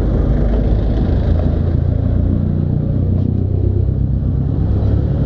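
Suzuki Raider motorcycle engine idling steadily with a low rumble.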